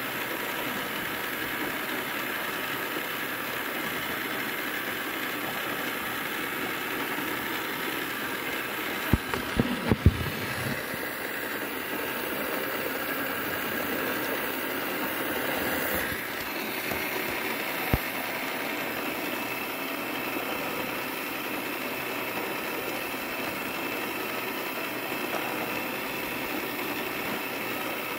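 Motorized plastic toy gear set running: a small electric motor turning meshing plastic gears, a steady whirring clatter. A short cluster of knocks comes about a third of the way through, and a single knock follows a little later.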